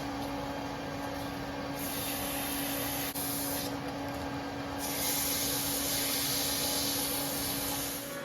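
Lathe running a light finishing pass on a steel cannon barrel: a steady hum with one clear tone, and a loud hiss that comes and goes in stretches of a second or more.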